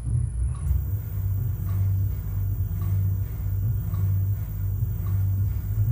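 Shock absorber dyno test bench running, a steady low hum with a faint tick about once a second as it cycles a ZF adaptive damper from a Porsche Taycan 9J1. The damper has leaked its oil and holds only gas pressure, so it gives almost no resistance.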